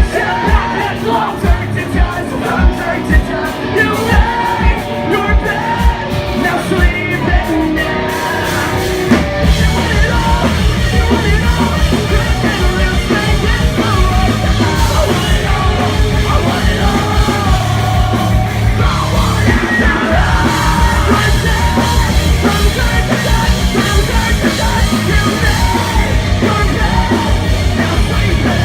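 Live rock band playing loud, with drums and yelled vocals. For the first nine seconds or so the drum hits stand out on their own, then the full band comes in denser and steadier.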